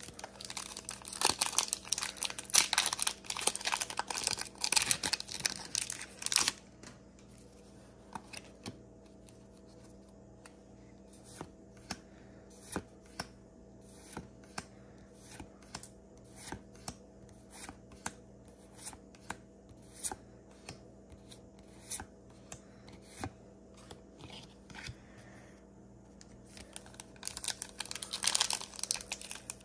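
Foil booster-pack wrapper crinkling and rustling for the first six seconds or so, then soft card flicks, about one a second, as trading cards are slid one by one from the back of the stack to the front. Near the end a fresh foil pack crinkles again as it is picked up to be torn open.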